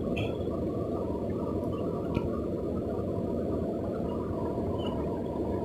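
Steady low rushing of a swollen, fast-flowing river current, with a faint short click about two seconds in.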